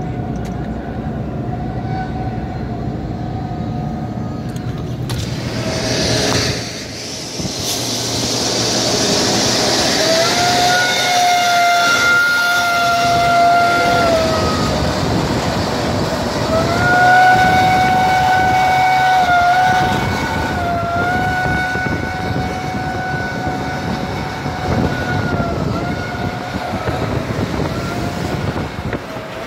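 Highway traffic noise heard from inside a moving car as it runs alongside heavy dump trucks. From about ten seconds in, a long steady whine rises over the road noise and is held for several seconds at a time, with short breaks and slight dips in pitch.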